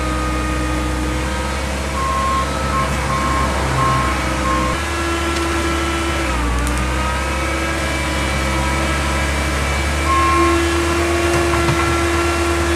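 Heavy equipment engine running steadily, changing note about five seconds in. A reversing alarm beeps five times about two seconds in, and once more near the end.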